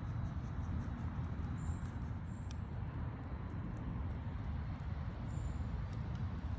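Wood fire burning in a stone fire pit: a steady low rumble with a few faint crackles.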